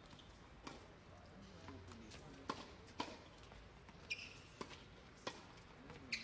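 Tennis ball struck by racquets and bouncing on a hard court during a fast doubles exchange at the net: a string of sharp knocks, one every half second to second or so.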